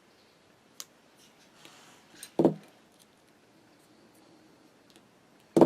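Two sharp knocks about three seconds apart, hammer blows punching a hole through a leather pad, with faint clicks of small metal tools being handled between them.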